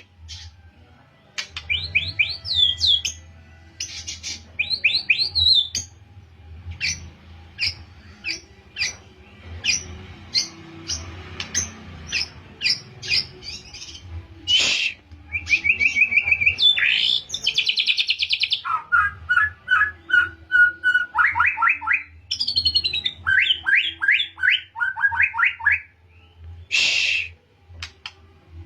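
A young white-rumped shama singing a long run of varied phrases: quick rising chirps, fast rattling trills and repeated notes, practising canary-style song bursts. Two short harsh calls stand out, about halfway through and near the end, over a faint steady low hum.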